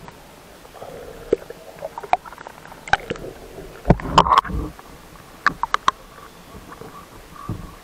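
Water sloshing and splashing around a handheld camera as it dips under and breaks back out of the surface, with irregular knocks and clicks and one louder splash about four seconds in.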